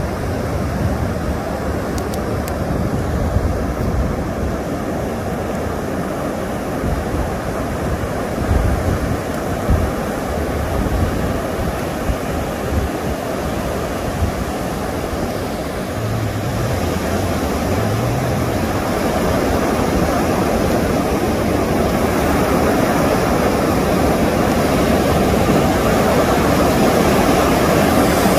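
Ocean surf breaking and washing up a sandy beach, with wind gusting on the microphone in low rumbles; the surf grows louder over the last third.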